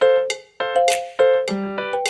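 Background music: a melody of pitched keyboard-like notes, each struck sharply and fading, in a steady rhythm.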